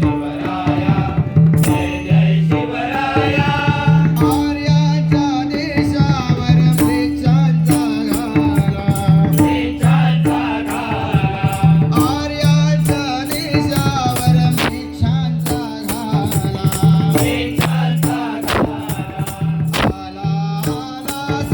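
Marathi devotional bhajan singing with pakhawaj and tabla drums keeping a steady rhythm and small hand cymbals clinking on the beat.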